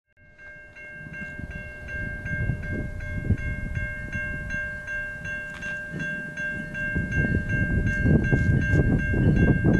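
Level-crossing warning bell ringing steadily, about two and a half strikes a second, over a low rumbling noise that grows louder.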